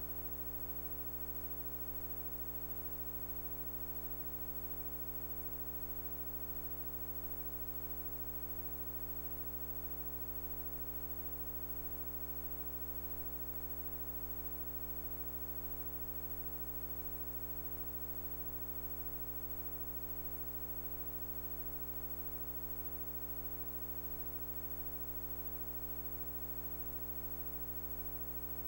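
A steady, unchanging hum made of many evenly spaced overtones, over a faint hiss.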